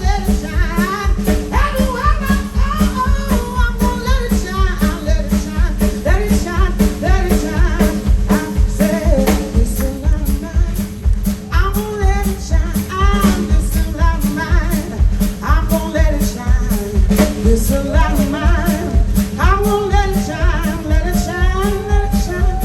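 A live blues band playing an upbeat number with drums keeping a steady beat, a woman singing lead over it.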